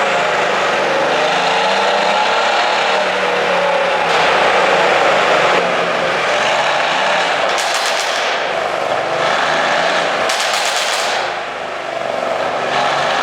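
Mercedes-AMG C63 S twin-turbo V8 with a pops-and-bangs ECU tune, the engine running and revving with a wavering pitch. Two rapid bursts of crackling exhaust pops come about eight seconds in and again about ten seconds in.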